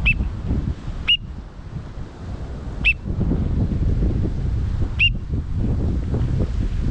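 Short, high whistled peeps, four of them at uneven gaps of one to two seconds, over heavy wind rumble on the microphone.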